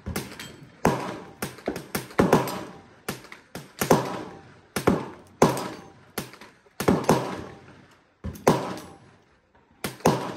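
Gunshots on a shooting range's covered firing line, coming irregularly about once or twice a second, each a sharp crack with a short echoing tail. Some shots are louder and nearer than others.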